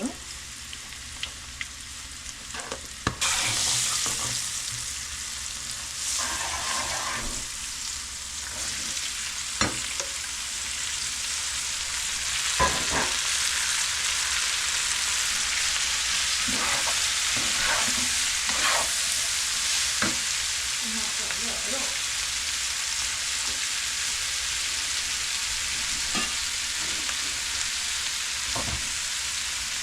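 Chicken frying in hot oil in a pan, stirred with a spoon. The sizzling jumps up suddenly about three seconds in and then holds steady, with occasional scrapes and knocks of the spoon against the pan.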